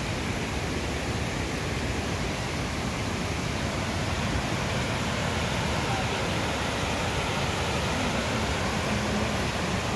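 Steady rushing of flowing water, an even wash of noise without a break.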